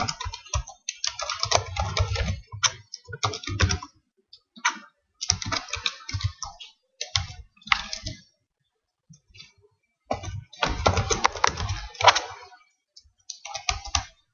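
Computer keyboard being typed on in quick runs of keystrokes, broken by pauses of a second or two.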